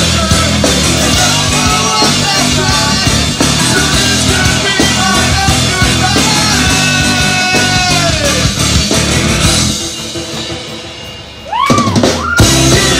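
Electro-hardcore band playing loud and live, with a drum kit, guitars and singing. Near the end the band drops back, a quick swooping sound rises and falls, and then the full band comes crashing back in.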